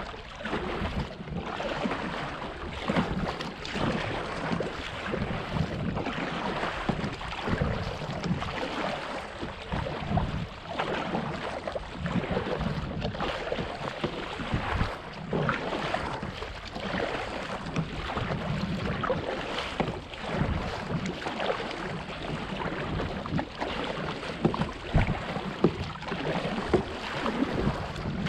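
Water lapping and splashing irregularly against a kayak's hull, with wind rumbling on the microphone.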